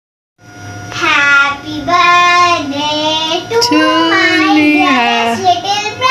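A child's voice singing a melody in long, held notes. It starts abruptly about half a second in, after dead silence.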